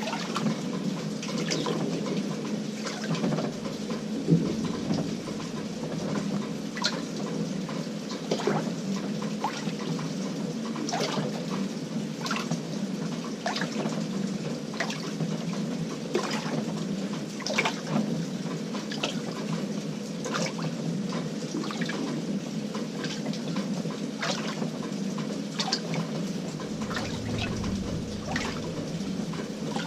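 Water splashing and sloshing inside the tub of an LG 18 kg top-load washing machine on a delicate cycle. Irregular splashes come over a steady low hum.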